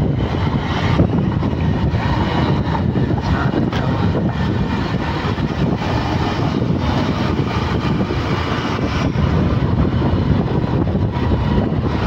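Steady engine drone and road noise of a vehicle driving along at speed.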